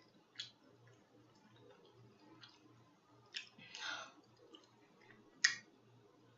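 Mouth smacking while chewing food: a few sharp, wet lip-and-tongue clicks, the loudest about five and a half seconds in, and a softer smack a little before four seconds.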